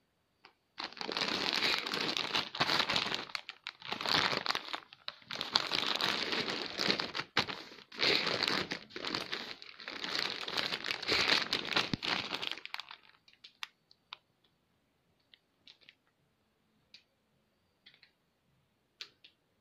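Plastic wrapping of a Huggies Wonder Pants diaper pack crinkling as the pack is handled and turned over, in dense bursts with short breaks for about twelve seconds. After that, only a few small crackles.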